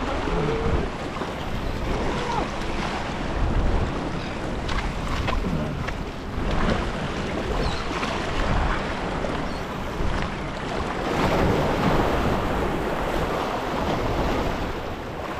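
Small waves washing in and breaking against the boulders of a rock jetty, rising and falling in swells, with wind buffeting the microphone.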